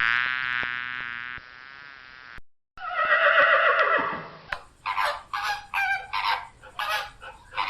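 Farm animal calls in sequence: a long pitched call that fades out, then a second long call, then a run of short, rapid calls.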